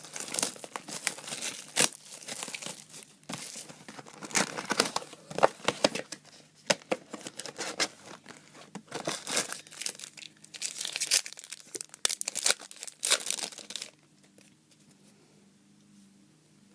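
Trading-card box and pack wrappers being crinkled and torn open by hand, a dense stretch of crackling rustles and tears that stops about two seconds before the end.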